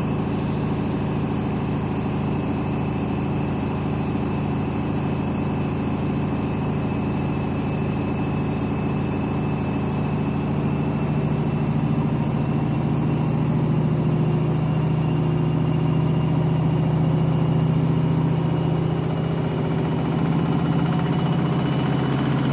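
Candy washing machine's drum accelerating on the final 1600 rpm spin of a cottons cycle: a steady hum under a high motor whine that climbs slowly in pitch and gets a little louder from about halfway through.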